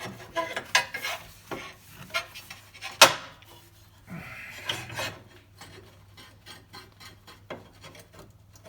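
A cut sheet-metal patch piece being fitted by hand against a Toyota truck frame: scattered metal clinks, taps and scrapes, with one sharp knock about three seconds in.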